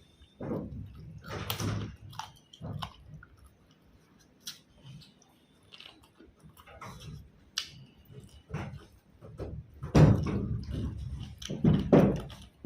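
Close-up chewing and mouth sounds of a person eating a meal of chicken and mutton curry, in irregular bursts, the loudest two coming near the end.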